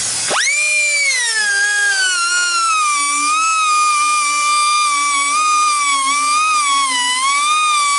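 Small high-speed grinder starting up about a third of a second in, its whine rising fast, then easing back and running on with a wavering pitch as it grinds the steel teeth of a sawmill band blade to sharpen them.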